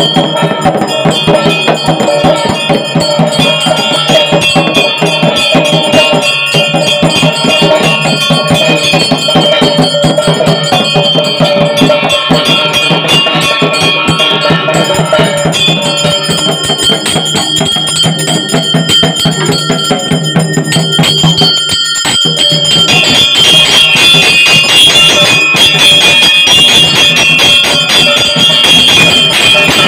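Pooja bells ringing continuously with rapid strikes, the ringing that goes with an aarti lamp offering. It grows louder about two-thirds of the way through.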